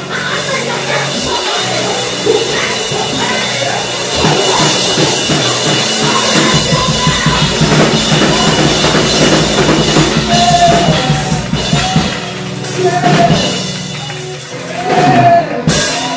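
Loud live church music with a driving drum beat and held low notes, with voices singing over it.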